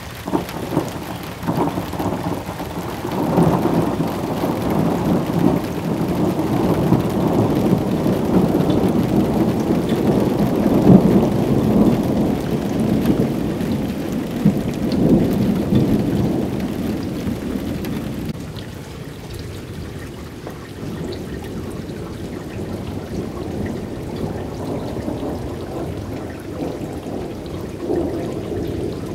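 Thunder rolling over steady rain. The rumble swells about a second in, stays loud for around fifteen seconds and then dies away, leaving the rain hissing.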